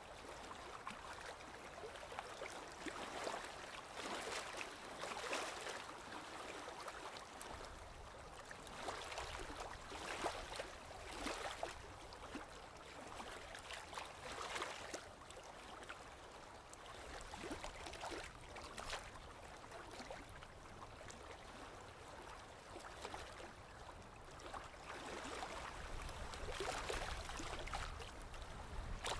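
Gentle sea water lapping and splashing, swelling and easing every few seconds over a steady watery hiss, with a low rumble building near the end.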